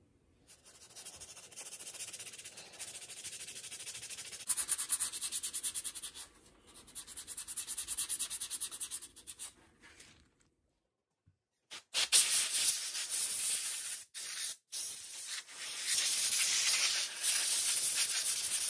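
Abrasive scrubbing on the metal parts of a 1950s GE electric fan: runs of quick back-and-forth rubbing strokes. After a short pause about ten seconds in, a louder, steadier scrubbing follows on the opened motor end.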